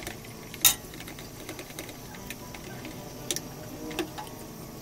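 Small clicks and taps of a whisk and a metal ladle against a metal mixing bowl and pot, with one sharp clink about half a second in and two lighter ones near the end. This is the clatter of whisking ladled hot rice water into the yogurt mixture to temper it.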